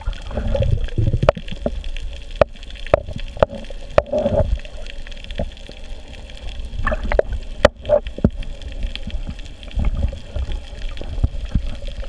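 Underwater sound during a scuba dive: muffled water noise with bursts of gurgling bubbles from divers' regulators every few seconds, and scattered sharp clicks and knocks.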